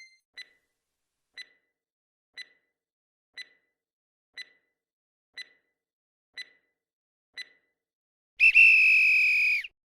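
Countdown timer sound effect for answering a quiz question: eight short ticks one second apart, then a loud buzzer tone lasting just over a second to signal that time is up.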